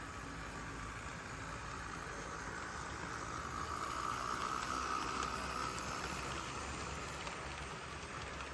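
HO scale model diesel locomotives and freight cars running past on the track: a steady whine of the locomotive motors and rumble of wheels on rail, swelling about four to five seconds in as the two locomotives pass closest, then easing as boxcars follow with a few faint clicks.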